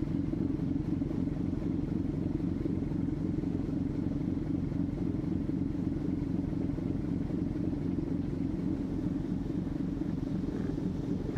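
Car ferry's diesel engine running with a steady low drone as the ship gets under way from the pier.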